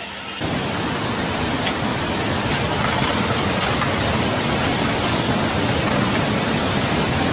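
Loud, steady rushing of water, like a flood torrent or a waterfall, starting abruptly about half a second in.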